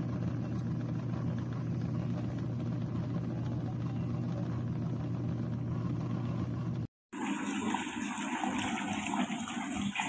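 Mini portable washing machine running with a steady low motor hum as its drum spins. After a short break about seven seconds in, water churns and sloshes in the tub as the machine agitates a foamy wash.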